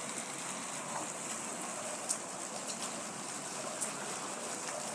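Steady rain falling, an even hiss with a few sharp drip ticks, the clearest about two seconds in and again near four seconds.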